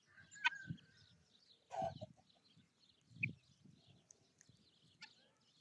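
Faint farmyard poultry sounds: scattered short calls and chirps, the two loudest in the first two seconds, with soft low thumps in between.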